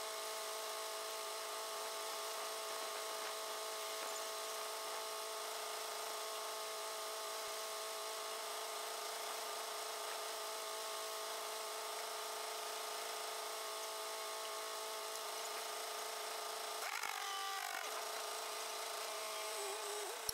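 Concrete mixer truck running with its drum turning, a steady mechanical whine of several level tones. About three seconds before the end it briefly wavers and glides in pitch.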